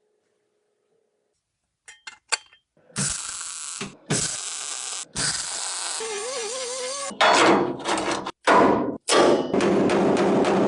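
Workshop tool noise in short, abruptly cut runs: a few sharp clicks, then several loud, hiss-like bursts of tool work, the loudest near the end, with a wavering whine in the middle.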